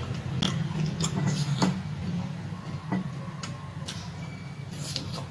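Mukbang eating sounds close to the microphone: a scatter of short, sharp clicks and smacks at uneven intervals as rice and curry are mixed and eaten by hand, over a steady low hum.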